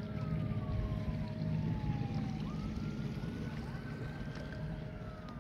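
Donut boat's motor running steadily under way, a low rumble. A faint high tone, like a distant siren, slowly falls, jumps back up about halfway through, then rises and falls again.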